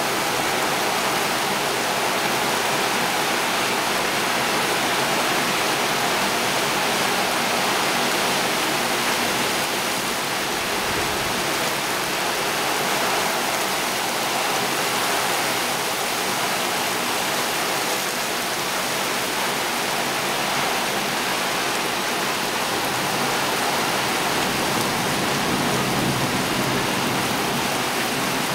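Heavy rain pouring down on roofs, trees and a flooded road, a dense, steady hiss.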